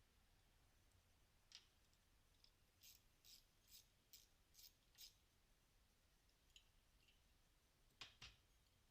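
Near silence broken by faint light clicks: a run of about six evenly spaced ticks roughly two a second, then two slightly sharper clicks close together near the end.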